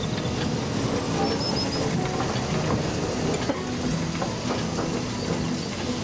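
Ivatt Class 2 tank steam locomotive No. 41313 running slowly along a station platform, heard from its footplate: a steady rumble of the engine and wheels on the rails, with some clickety-clack.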